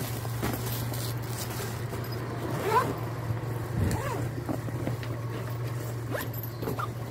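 Zipper on an insulated delivery bag being pulled along in several short strokes, over a steady low hum.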